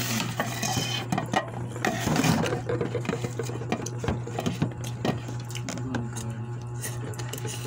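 Forks and spoons clicking and scraping on plates of rice and noodles, scattered short clicks over a steady low hum.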